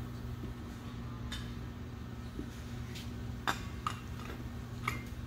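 Four short, sharp metallic clicks and clinks from the brass charging gauge assembly being handled on a hydraulic rock drill's accumulator, the sharpest about three and a half seconds in, over a steady low hum.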